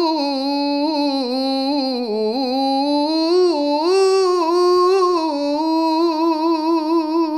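A cantor's solo male voice singing unaccompanied, one long wordless melisma on a single breath that glides up and down in pitch. About two thirds of the way in it settles into a quick, regular warble of about four pulses a second.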